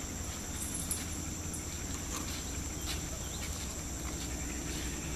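Faint footsteps and a few light ticks over a steady high-pitched drone and a low hum.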